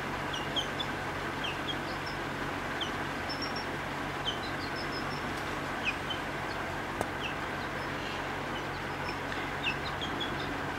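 Young chicken peeping: short, high, falling peeps at irregular intervals, roughly one or two a second, over a steady background hum.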